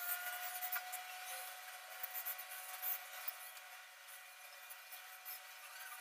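Soft scratching and light clicking from cockatiels shifting about in their cage, claws and beaks on the wooden perch and wire bars, busiest in the first half and thinning out after about three seconds. A faint steady tone hums underneath.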